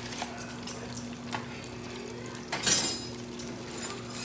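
Battered seafood frying in a deep fryer: a steady sizzle over a low hum, with a few light clicks and a short, louder rush of noise about two and a half seconds in.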